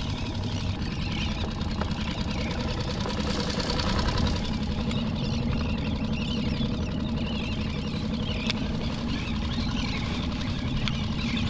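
Small outboard motor on a skiff running steadily at trolling speed, with a constant low hum.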